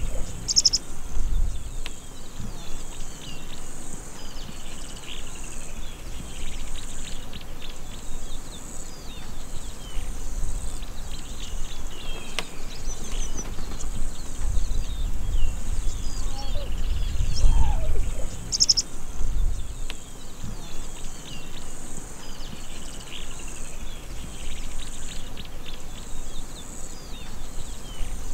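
Open-grassland ambience: many small birds chirping throughout over a steady high insect buzz, with a low rumble that comes and goes, strongest a little past the middle.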